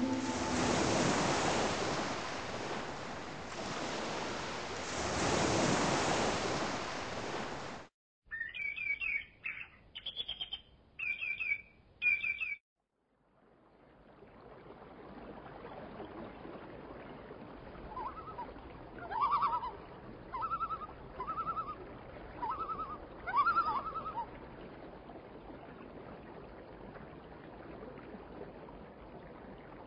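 Loud rushing water for about eight seconds, then a sudden cut to a few seconds of short, high bird chirps. After a brief gap comes a quieter outdoor hiss, with a bird giving six short calls in a row.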